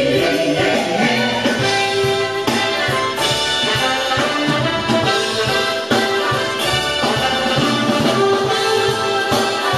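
Rock song playing back through a JVC KD-A11 cassette deck, an instrumental stretch with no vocals.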